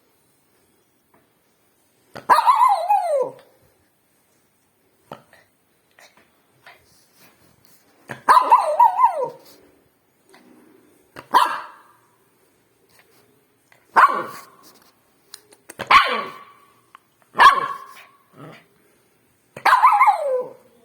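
A dog barking in single barks with pauses between them: sparse at first, then every couple of seconds. Several of the barks are drawn out and fall in pitch at the end.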